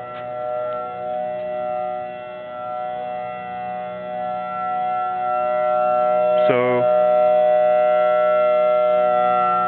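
Civil defense tsunami warning siren sounding a steady chord of tones, its level swelling and fading, then holding louder from about six seconds in.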